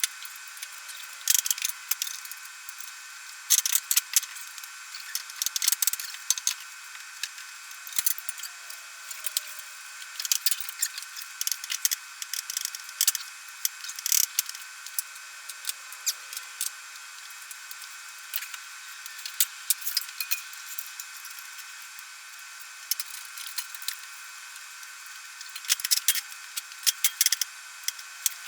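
Hand socket ratchet clicking in short bursts, mixed with clinks of metal tools, as bolts on the car's rear suspension arms are tightened.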